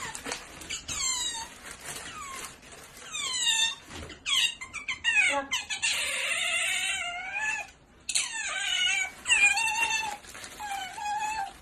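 Series of high-pitched squeaky animal calls, each falling in pitch, with a longer wavering call in the middle and a brief pause about two-thirds of the way through.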